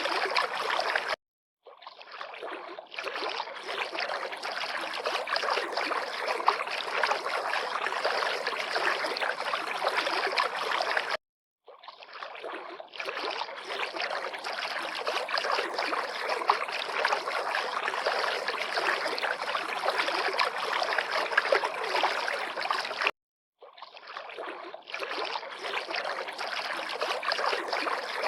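River water lapping and rushing in a steady stream. It cuts out to silence for about half a second three times, roughly every eleven seconds, fading back in after each gap.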